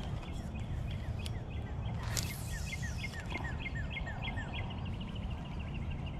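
A bird calling a quick series of short down-slurred notes, about three a second for several seconds, over a low steady rumble of wind on the microphone.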